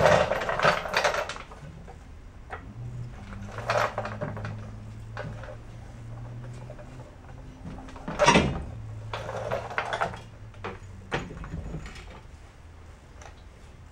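Steel leaf spring leaves being shifted and knocked into place by hand: scattered metal clanks and scrapes, the loudest right at the start and about eight seconds in.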